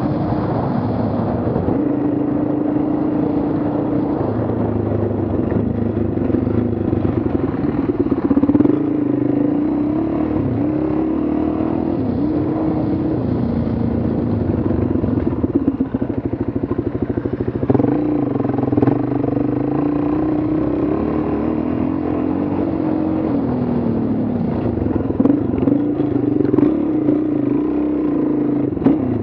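Dual-sport motorcycle engine running along a trail, its note stepping up and down repeatedly as the throttle is rolled on and off, with a few knocks and clatter from the bike over the rough ground.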